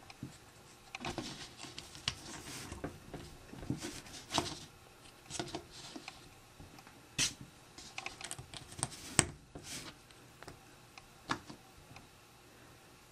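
Plastic Lego pieces clicking and rattling as they are handled and pressed together onto a base plate, in scattered, irregular clicks, the sharpest a little after the middle.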